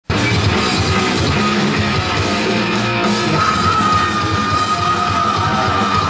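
Heavy rock band playing live at full volume, guitars and drums, with a high held note coming in about three and a half seconds in.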